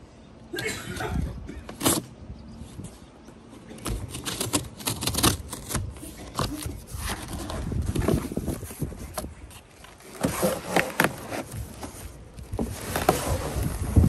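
Cardboard shipping box being opened and handled: scraping, rustling and sharp knocks of the cardboard flaps and sides. Near the end, the plastic and bubble wrap around the motorcycle windshield inside crinkles under the hands.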